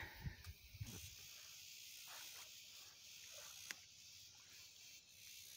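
Near silence: faint, steady high hiss of outdoor background, with a few faint clicks.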